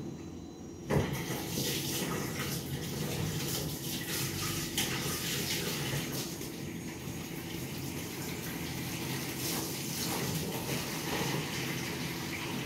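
Kitchen tap turned on about a second in and left running, water splashing into the sink while dishes are washed up, with a few light knocks of crockery.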